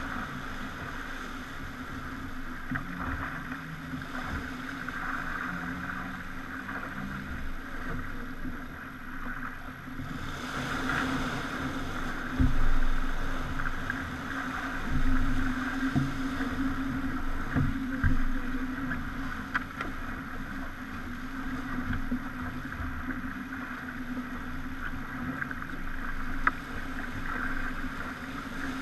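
Pogo 30 sailing yacht under way at sea: a steady hum with water rushing along the hull, a louder rush of water about ten seconds in, and scattered knocks and thumps.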